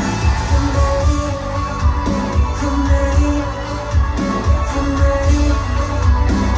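A pop song with singing, guitar and a strong regular bass beat, played loud through Revel M16 speakers driven by a Vincent SP-331 power amplifier.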